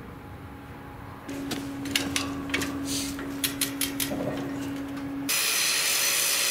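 Hand-pulled chain hoist (chain fall) working: a run of sharp metallic ratchet clicks over a steady hum. About five seconds in, this gives way to a louder, steady hiss.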